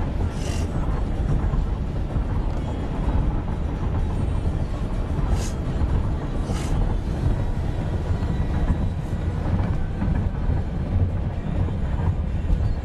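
Steady low rumble of a moving car heard from inside the cabin, with a few brief hissy noises.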